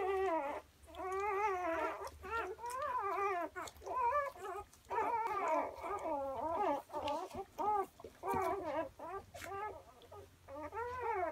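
Newborn German Shorthaired Pointer puppies, a few hours old, crying: a steady string of short, wavering squeals, one after another with hardly a pause.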